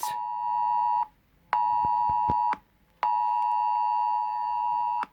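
Smartphone UK Emergency Alert tone: a loud, steady two-pitch alarm tone sounding in blocks, about a second on, a short pause, another second, a short pause, then about two seconds, and cutting off sharply. It is the government emergency alert signal arriving on the phone.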